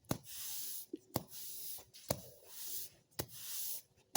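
A broom sweeping a garage floor: four strokes, about one a second, each a short tap followed by a brisk swish of bristles.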